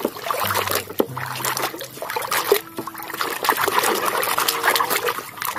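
Water trickling and splashing as a muddy toy is rinsed clean, in uneven spurts.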